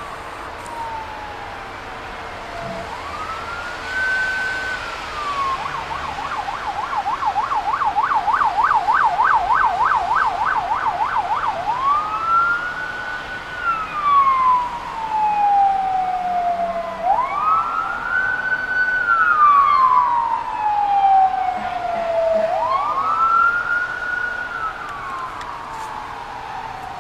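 Emergency vehicle siren on a wail: long sweeps that rise and then slowly fall. It switches to a fast yelp of about three cycles a second for roughly five seconds, then goes back to the wail. It grows louder toward the middle and fades near the end.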